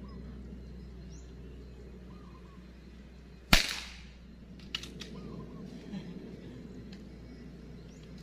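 A single air rifle shot about a third of the way in: one sharp crack with a short ringing tail, followed about a second later by a lighter click.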